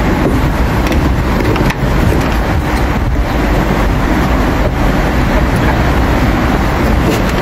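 Steady, loud low rumbling background noise with a few faint clicks.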